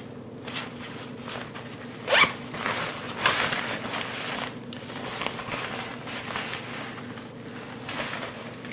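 Zipper on a ripstop nylon daypack being pulled, with the nylon fabric rustling as it is handled. The two loudest zips come about two seconds in and just after three seconds.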